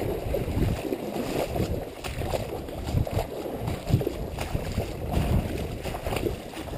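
Someone wading through a shallow flooded marsh: uneven sloshing steps in the water and brushing through dry reeds.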